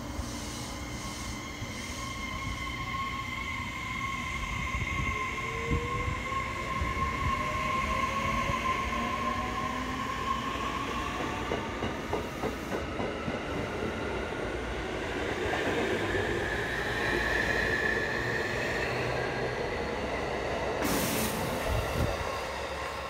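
JR Kyushu 811 series electric multiple unit pulling away from a station: an electric whine rises in pitch as it accelerates, with wheels clicking over the rail joints as the cars pass close by. There is a brief rush of noise near the end.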